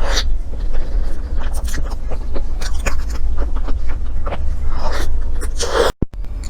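Close-miked eating and table-handling sounds: scattered small clicks and scrapes over a steady low rumble, with a short hissing burst near the end.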